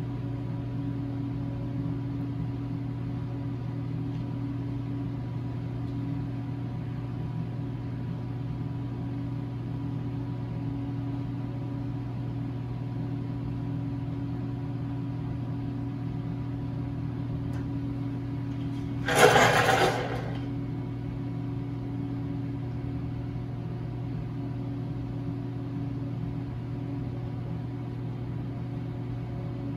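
Steady low machine hum. About two-thirds of the way through, a brief loud rush of noise lasts about a second.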